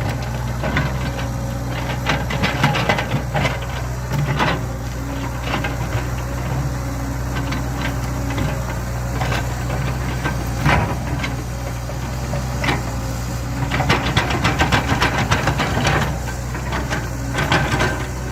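Excavator's diesel engine running steadily, with scattered clanks and rattles from the machine at work, and a dense run of rattling about fourteen to sixteen seconds in.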